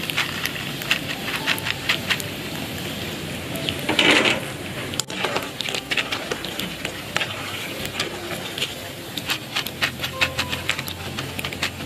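Macaroni deep-frying in hot oil in a wok, sizzling with many small crackles and pops, as a wire skimmer stirs and lifts the pieces; a louder burst of noise about four seconds in.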